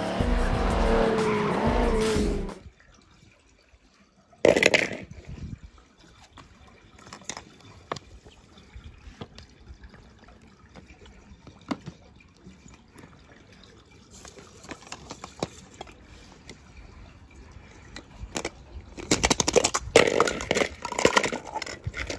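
Film sound of a cartoon car's engine with a tyre skid over music, cut off after about two and a half seconds. Then quiet handling clicks and taps with one loud knock, and near the end a clatter and splashing as a die-cast toy car is handled in a plastic bowl of water.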